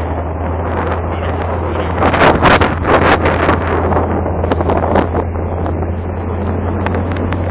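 Steady low hum of a boat's engine under wind buffeting the microphone. The gusts are strongest from about two seconds in.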